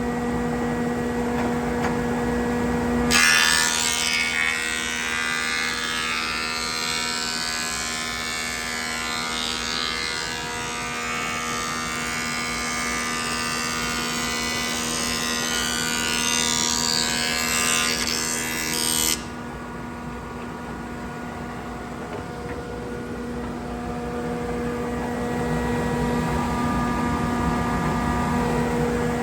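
Thickness planer running with a steady hum. About three seconds in, a board feeds through and the cutterhead planes it: a loud, rushing cutting noise for about sixteen seconds that stops abruptly as the board clears, leaving the machine running empty.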